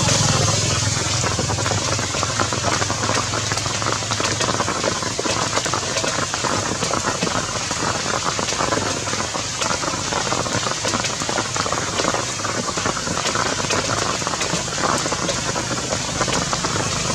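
Steady rain falling, a continuous patter of many small drops.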